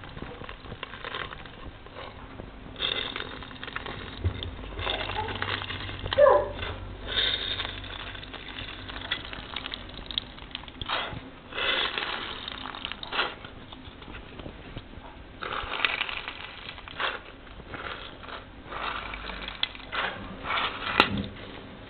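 Pomegranate squeezed and kneaded by hand over a glass bowl, its seeds crushing wetly and juice dripping, in irregular bursts.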